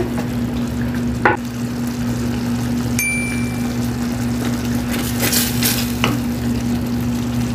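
Tomato-based barbecue sauce simmering in a stainless steel skillet on a gas stove, with the bubbling hiss broken by a wooden spoon stirring through it. A steady low hum runs underneath, a click comes about a second in, and a brief metallic clink rings about three seconds in.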